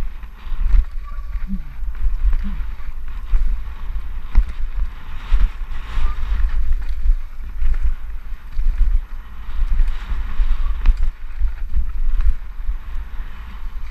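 Wind noise buffeting a helmet-mounted camera's microphone during a fast mountain bike descent. Underneath are tyres running over loose dirt and gravel, and the bike knocking and clattering over bumps.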